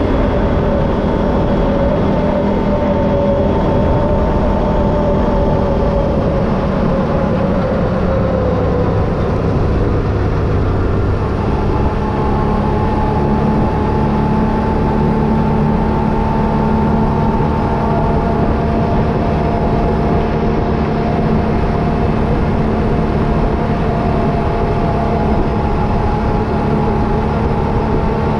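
Can-Am Renegade 1000 ATV's V-twin engine running while riding, its pitch easing down about a third of the way in and then holding steady.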